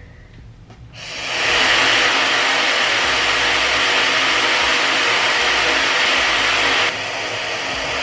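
TYMO Airhype Lite high-speed hair dryer switched on about a second in, spinning up to a loud, steady rush of air. Near the end the sound steps down a little as the airflow speed setting is changed.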